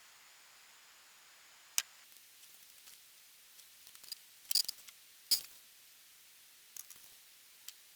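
Scattered light clicks and snips of small hobby tools handling plastic-model decals, with the two loudest about halfway through.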